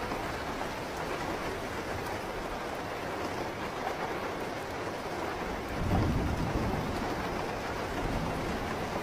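Steady rain, with a low rumble of thunder swelling about six seconds in and fading over a second or so.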